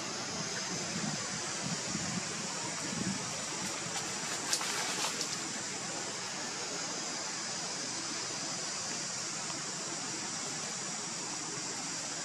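Steady outdoor background hiss with a higher band of noise above it, and a few faint clicks about four to five seconds in.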